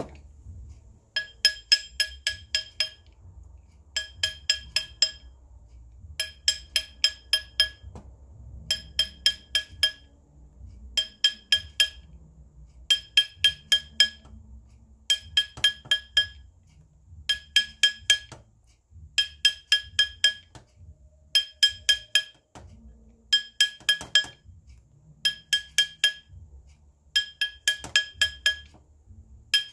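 Small jeweller's hammer tapping a ring on steel to stretch it up to size, with bright ringing taps. The taps come in quick bursts of about six, one burst every two seconds or so.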